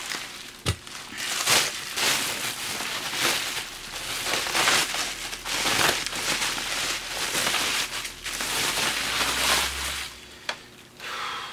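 Bubble wrap crinkling and rustling in repeated surges as it is cut and pulled off a bench multimeter, with a sharp knock about a second in and another near the end.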